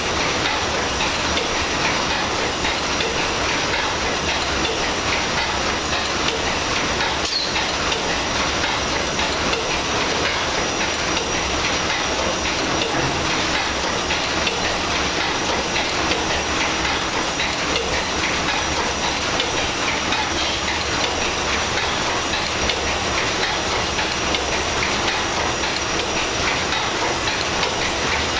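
The paddle steamer Stadt Luzern's steam engine running steadily, its cranks and connecting rods turning, heard close up in the engine room.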